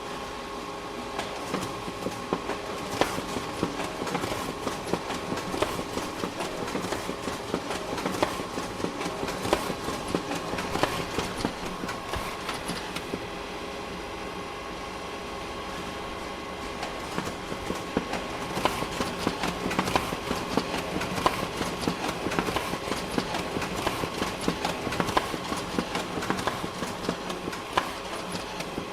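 Office printer running: a steady mechanical hum overlaid with dense, irregular clicking and rattling, busier in two long stretches with a quieter spell about halfway through.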